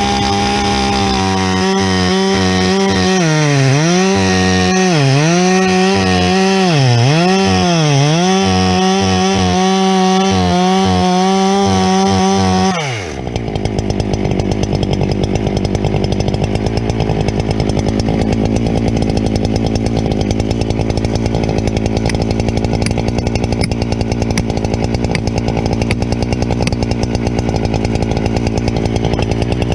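Husqvarna 395 two-stroke chainsaw at full throttle cutting into a log, its pitch dipping several times as the chain loads up in the wood. About 13 seconds in it drops to a steady idle, then revs up again right at the end.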